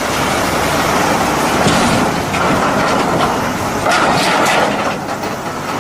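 Loud, steady rush of water spraying over a plastic toy as it is rinsed clean.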